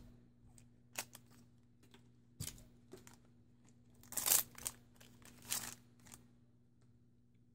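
Foil trading-card booster pack wrapper crinkling as it is torn open by hand, after a few light clicks of cards being set down. The two loudest crinkly bursts come about four and five and a half seconds in.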